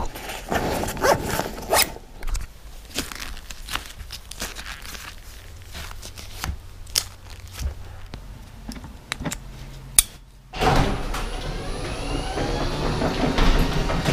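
Velcro straps on cycling shoes being ripped open and pressed shut in a run of short rasps and clicks. About ten and a half seconds in, a garage door opener starts and runs with a steady whir and a rising whine.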